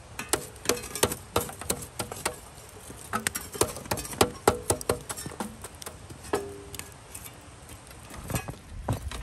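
Metal fire tongs clinking against a steel fire pan and knocking through charcoal embers: irregular sharp clinks, some with a short metallic ring, coming in quick clusters.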